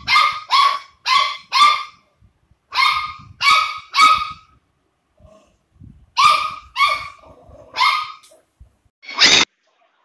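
Labrador retriever puppy barking in high-pitched yapping barks, about a dozen in quick clusters of two to four, with a pause of over a second about halfway through.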